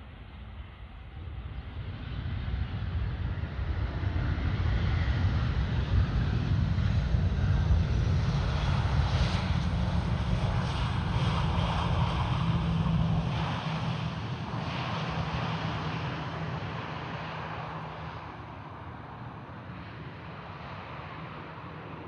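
Airbus A320-200 jet airliner's engines as the plane passes by: the noise swells over about two seconds, stays loud with a steady low hum for about ten seconds, then fades away.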